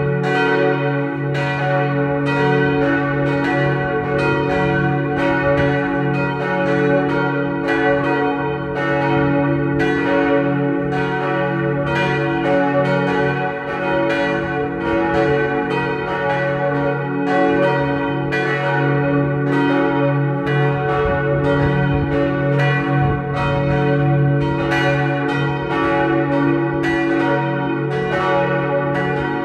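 Three swinging church bells, cast by Otto in 1964 and pitched C-sharp, F-sharp and A-sharp, ring together as a partial peal. Their strikes overlap continuously in an irregular pattern, with a steady hum underneath.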